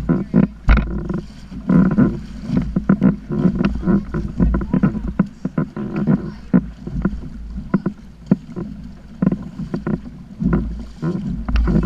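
Water slapping and splashing against a kayak hull in a run of irregular knocks, with wind rumbling on the microphone.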